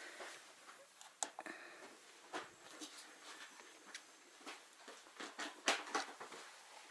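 Faint scattered clicks, knocks and rustles of people moving about and handling things in a small room, the sharpest knocks about a second in and near six seconds.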